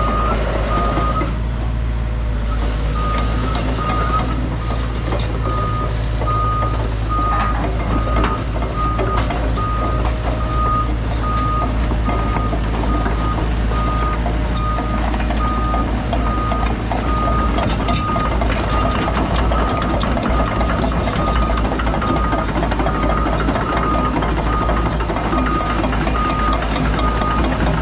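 Backup alarm beeping at an even pace over a heavy machine's engine running steadily. The beeps pause briefly about a second in, then resume.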